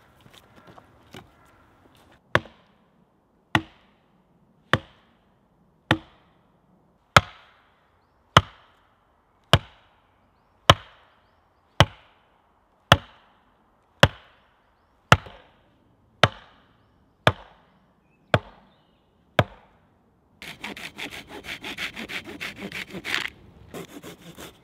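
Wooden stake being driven into the ground with the flat head of an axe: about sixteen evenly paced blows a little over a second apart. Near the end comes a few seconds of fast rasping on wood.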